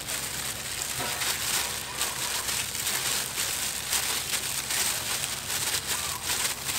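Thin plastic food gloves crinkling and rustling as gloved hands squeeze and shape a ball of cooked rice, with many small crackles throughout.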